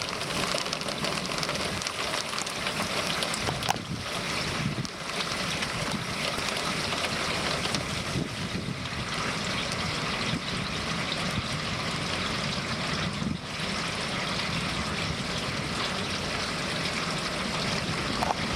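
Steady rush of storm wind and rain on the microphone, dipping briefly a few times.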